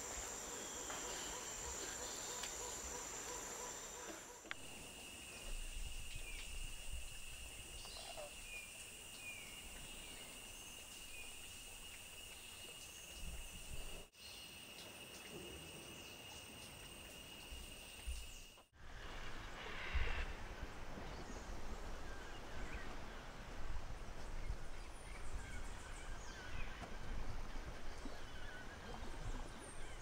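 Tropical rainforest ambience: a steady high-pitched insect drone with scattered short bird calls, the insect pitch changing abruptly about four seconds in and again near fourteen seconds. The drone drops out around nineteen seconds, leaving chirps over a low rumble.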